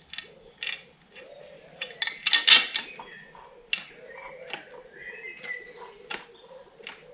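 Hand tools clinking and tapping against metal engine parts: a series of sharp metallic clicks, busiest about two and a half seconds in, with a faint repeated chirping underneath.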